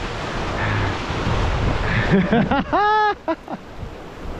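Ocean surf washing and breaking over rock ledges, a steady rushing wash. About two seconds in, a man gives a brief wordless groan of dismay, rising then falling in pitch.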